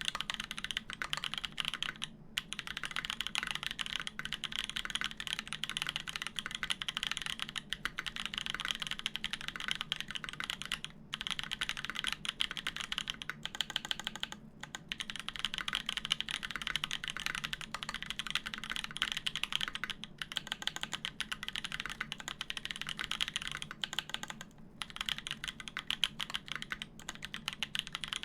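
Continuous fast typing on a custom mechanical keyboard with lubed Gazzew Boba U4T tactile switches on a polycarbonate plate and GMK keycaps: a dense run of keystroke clacks, with a few short pauses.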